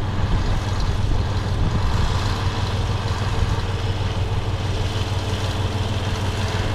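Kirovets K-739 tractor's diesel engine running steadily at low revs as the tractor drives slowly, a deep even rumble.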